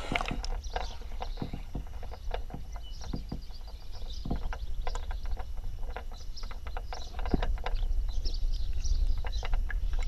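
Underwater creek ambience picked up by a submerged camera: a steady low rumble with many irregular sharp clicks and ticks.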